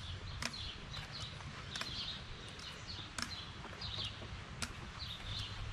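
Forearm crutches clicking on a paved path, a sharp tap every second or so as they are planted, with birds chirping in the surrounding trees and a low rumble underneath.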